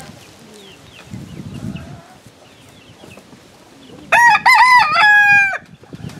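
A rooster crows once, about four seconds in: a single cock-a-doodle-doo of several linked, high, clear notes lasting about a second and a half, ending with a longer held note that drops off.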